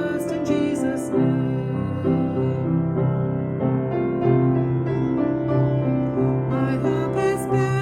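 A slow worship song playing, led by piano.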